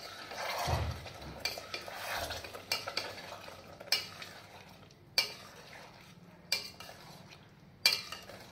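Long steel spoon stirring potatoes in masala gravy in a stainless steel pot, scraping through the gravy and knocking against the pot about once a second, with the gravy sizzling in the hot pot.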